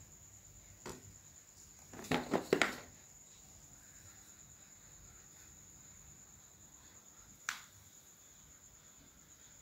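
Crickets trilling steadily and high, with a clear plastic snack bag crinkling in a short flurry of crackles about two seconds in, and one sharp click near the end.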